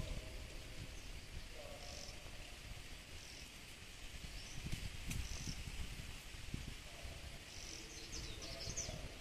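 Outdoor ambience: short, high chirping calls now and then, with a quick cluster of them near the end, over a low rumble.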